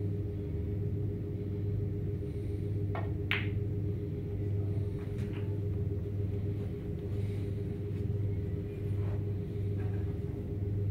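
Snooker shot: about three seconds in, the cue tip clicks against the cue ball and, a fraction of a second later, the cue ball strikes an object ball with a sharp, ringing click. A few fainter knocks of balls follow, over a steady low hum.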